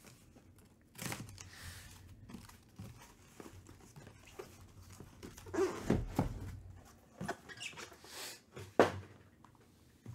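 A cardboard shipping case being cut open and handled: a box cutter slitting packing tape, then cardboard scraping and rustling with knocks as the boxes inside are moved. The loudest is a single sharp knock near the end.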